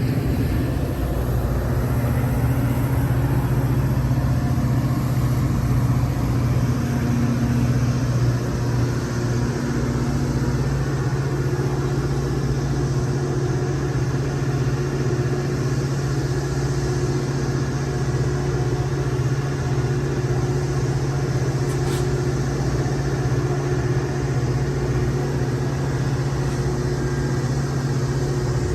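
A vehicle standing with its engine or motor running, giving a steady low hum with fixed tones. There is a single short click about 22 seconds in.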